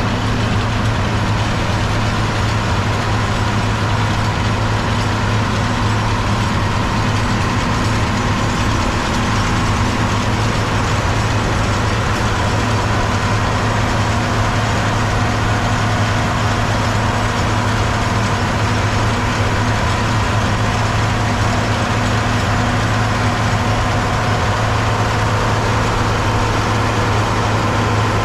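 John Deere 4230 tractor's six-cylinder diesel engine running steadily, pulling a round baler, with a strong low hum and a steady higher whine.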